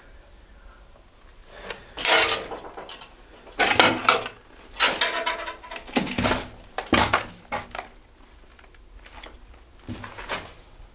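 Clattering and scraping of hard debris in a series of loud bursts over about five seconds, then a couple of fainter knocks near the end.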